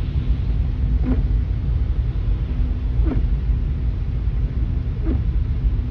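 Car cabin road noise: a steady low rumble from a car driving on a wet road. A faint short sound comes about every two seconds.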